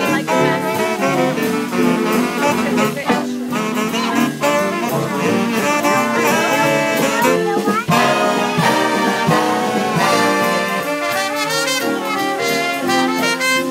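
Live big band playing swing, with trumpets, trombones and saxophones over a rhythm section.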